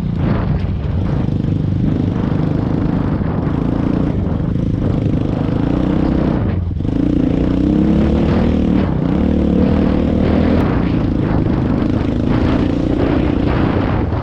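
Pickup truck engine running steadily as the truck drives along a rough trail, its pitch shifting with the throttle about halfway through.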